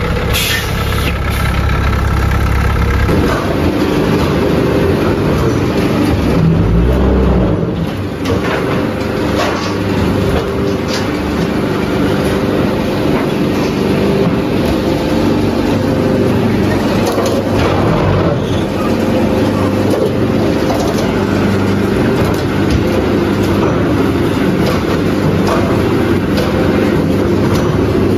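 A forklift's engine runs under load as it tows a truck on a strap for the first few seconds. Then a concrete brick-making machine runs: a dense, steady mechanical drone with scattered sharp knocks.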